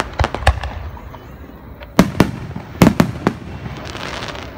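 Aerial firework shells bursting in quick succession: about seven sharp bangs, a pair just after the start and a cluster of five in the middle, followed by a crackling hiss near the end.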